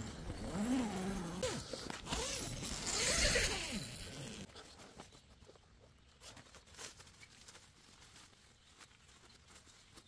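An animal calling: a few drawn-out, wavering calls with a raspy edge in the first four seconds, then only faint scattered clicks and rustles.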